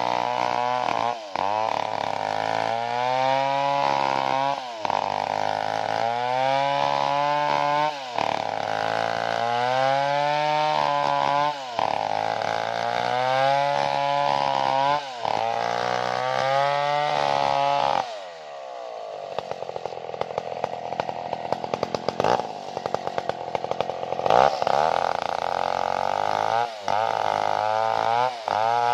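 Large two-stroke chainsaw ripping lengthwise along a log. Its engine note rises and sags under load every second or two, with brief breaks. About two-thirds of the way through the revs fall away and it idles unevenly for several seconds, then it is throttled up and cutting again near the end.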